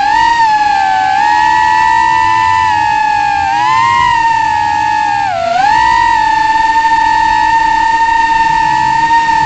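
The motors of a 3-inch FPV quadcopter whine at a high pitch, with several close tones from the separate motors. The pitch shifts with throttle, rising briefly about four seconds in, then dipping sharply about five and a half seconds in before climbing back and holding steady.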